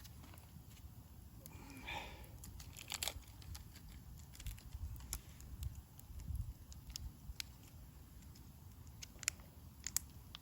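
Packaging being handled and opened, with light crinkling and scattered small clicks.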